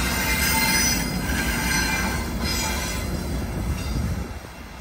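Trinity Railway Express commuter train, hauled by an EMD F59PH diesel locomotive, running past on the rails: a steady rumble of wheels on track with thin, wavering wheel squeal coming and going. The sound falls away about four seconds in as the train clears.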